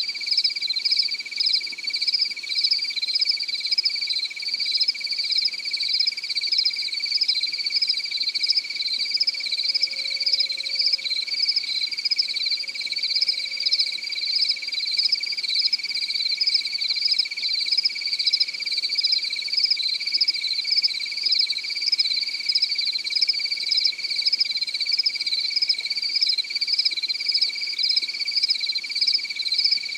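Crickets chirping at night in a steady chorus: one constant high trill and a faster pulsing chirp above it, with faint low calls coming and going underneath.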